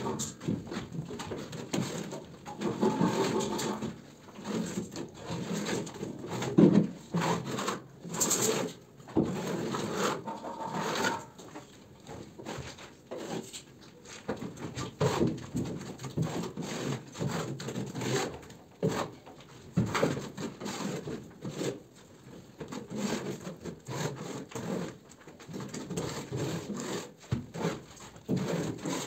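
Irregular rubbing and scraping strokes from hand plasterwork on a gypsum ceiling, as fibrous plaster is handled and worked.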